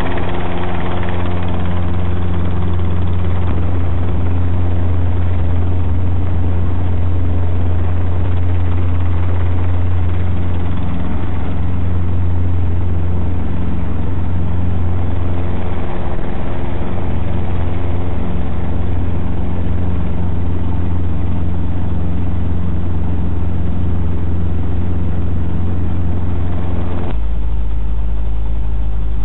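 Robinson R22 helicopter's piston engine and rotor running steadily, heard from inside the cockpit: a loud, even drone. Near the end the sound changes abruptly to a deeper hum.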